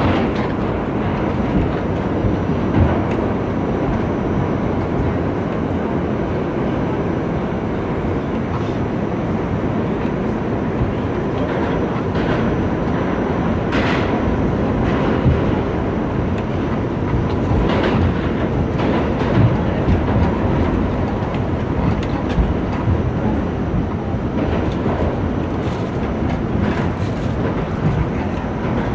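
New York City subway train heard from inside the car, running steadily on the express run between stations: a constant rumble of wheels on rail. Occasional sharp clicks and clatter from the rails come through, a few near the middle and several near the end.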